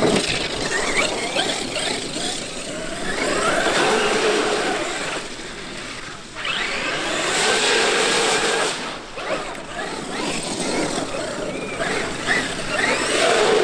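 Traxxas X-Maxx RC monster truck driving in repeated bursts of acceleration, its electric motor whining up and down with each surge.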